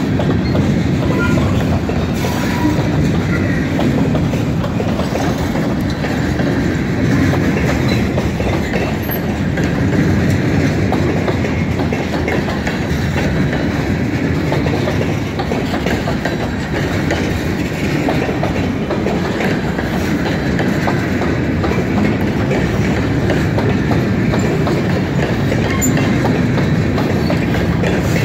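Freight train of covered hopper cars rolling past close by: a steady, loud noise of steel wheels running on the rails.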